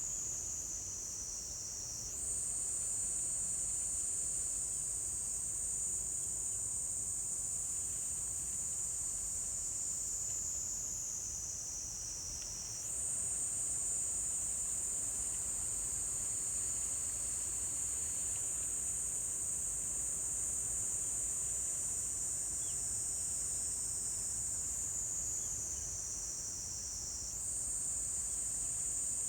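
Insects singing in a continuous high-pitched drone. The pitch slowly sinks, then jumps back up abruptly about two seconds in, again around thirteen seconds in, and once more near the end.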